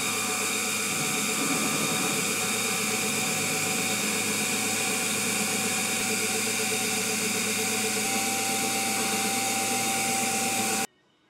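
Unimat miniature drill press running, its belt-driven motor giving a steady whir and hum as a small bit drills spoke holes in a metal ring held in a vise. A faint higher whine joins about eight seconds in, and the sound cuts off abruptly near the end.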